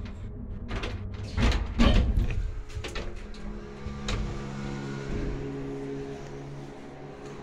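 Doors of an old Transporta passenger lift opening at a floor: heavy clunks and a rattle about a second and a half in, a few lighter clicks after, then a steady mechanical hum.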